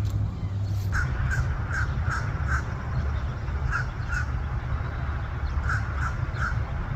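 A bird calling in short, repeated calls: five in quick succession, then two, then three more, over a steady low rumble.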